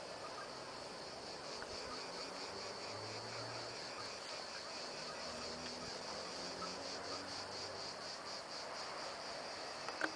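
Crickets chirping in a steady, rapid, high-pitched pulsing chorus.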